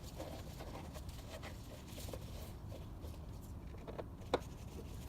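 Faint small clicks and scrapes of screws being turned by hand into the plastic air filter housing, with one sharper click about four seconds in, over a low steady hum.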